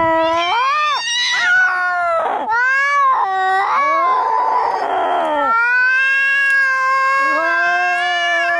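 Cats fighting: long, wavering yowls and caterwauls that rise and fall in pitch, with a harsh, noisy snarl in the middle and two cries overlapping near the end.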